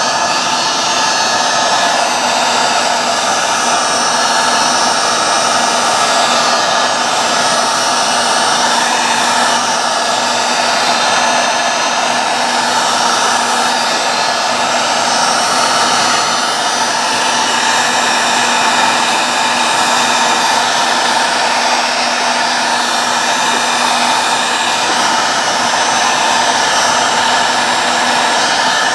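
Heat gun running on its low setting, a steady loud rush of blown air with a motor hum, shrinking heat-shrink tubing. It cuts off abruptly at the very end.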